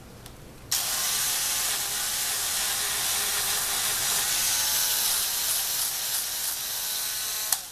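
A Dremel rotary tool's spinning sanding drum held against a brass wire brush to clean it: a steady, loud, scratchy hiss over the motor's whine. It starts abruptly about a second in and stops suddenly near the end.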